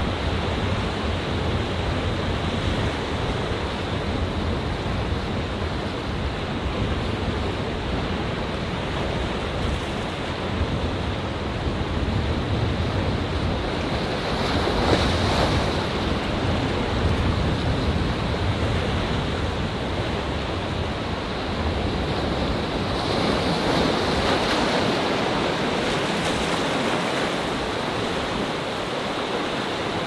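Atlantic waves surging and breaking among shoreline rocks: a continuous rush of surf that swells louder about halfway through and again after about 23 seconds.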